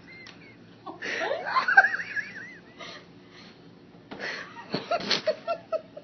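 Wheezy, high-pitched laughter about a second in, then a run of short, quick laughs near the end.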